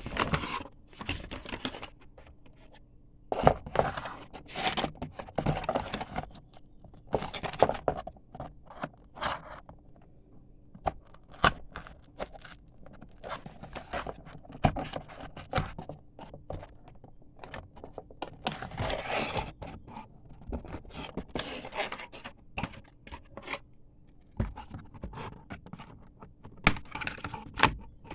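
Toy packaging being handled, scraped and torn open in irregular bursts, with sharp clicks and taps in between.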